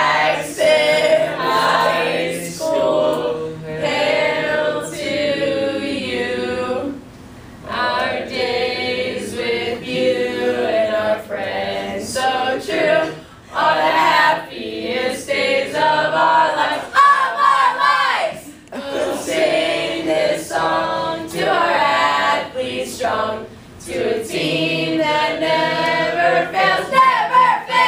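A group of teenage boys and girls singing a school alma mater together, unaccompanied, in held phrases with short breaks between them.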